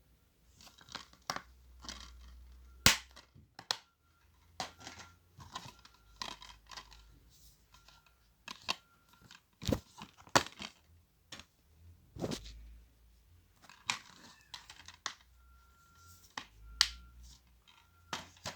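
Plastic DVD cases and packaging being handled: irregular sharp clicks and snaps of cases opening and closing, with crinkling of wrapping between them.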